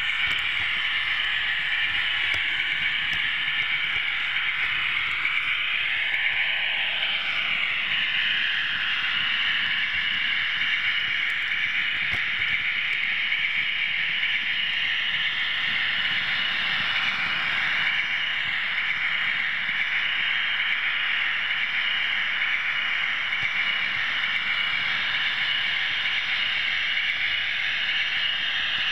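OO gauge model locomotive running along the track, heard close up from the moving train: a steady whirr of the electric motor and gears with the wheels running on the rails. A pitch rises and falls once about six to eight seconds in.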